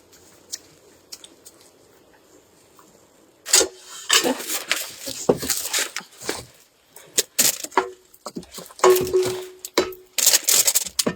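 Faint ticks at first, then, from about a third of the way in, an irregular run of loud rustling, clattering and clinking, like things being handled and moved about.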